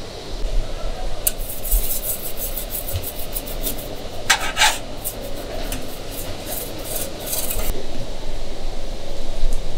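Dry scraping and rasping of metal utensils handling crisp Thai pancake (kanom buang) shells: a run of short scrapes, the loudest about halfway through.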